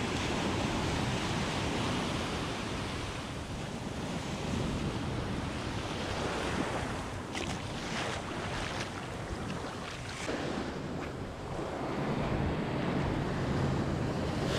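Ocean surf washing in over the shallows: small waves breaking and foam hissing, the sound swelling and easing with each wash.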